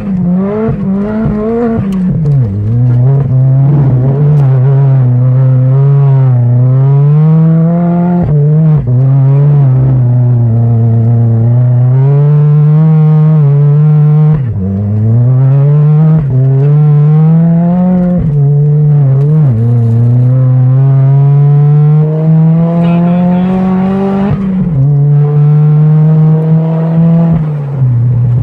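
Turbocharged Mazda MX-5 engine with a TD04 turbo, driven hard. The revs climb and then drop sharply about every five to six seconds, with turbo flutter as the throttle closes.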